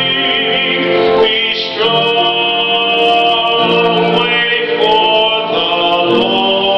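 Slow hymn-like singing with organ accompaniment, in long-held notes.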